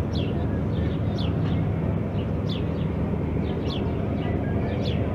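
A steady low rumble, with a bird's short falling chirps repeating about once a second.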